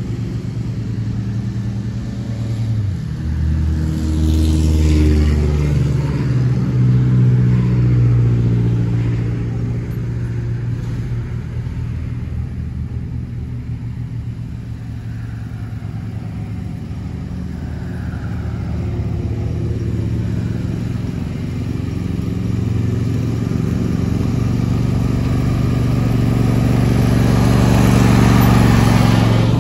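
John Deere S120 riding mower's V-twin engine running steadily while mowing grass. It swells as the mower comes near a few seconds in, fades as it moves off across the yard, then grows louder again as it drives up close near the end.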